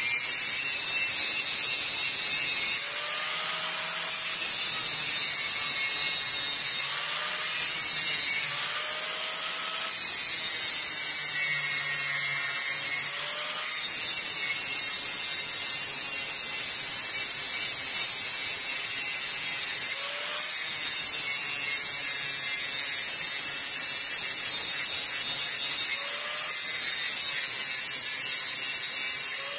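Angle grinder with a cutting disc grinding down a steel weld bead, a steady high-pitched grind. A few times the sound briefly drops away and the motor's whine rises in pitch as the disc eases off the metal, then the grind comes back.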